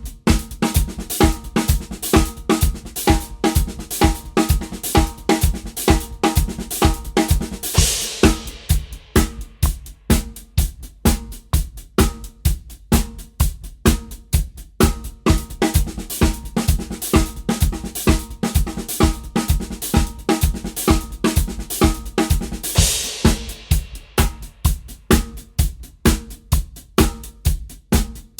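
Drum kit played in a fast, even run of 16th notes in paradiddle patterns across snare, hi-hat and bass drum. A cymbal crash rings out about eight seconds in and again about twenty-three seconds in.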